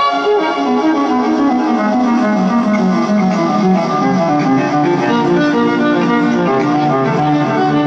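Solo amplified electric guitar playing a fast unaccompanied solo. Rapid runs of notes fall in pitch over the first few seconds, then give way to quick repeated phrases. It is heard through a stadium PA from the audience.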